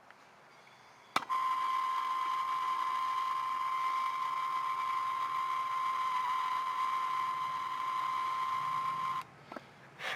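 A steady electronic beep tone, held for about eight seconds, that starts with a click and cuts off suddenly, followed by a couple of short clicks.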